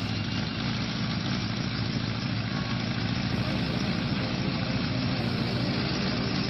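Engine of a homemade helicopter running steadily on the ground with its main rotor spinning.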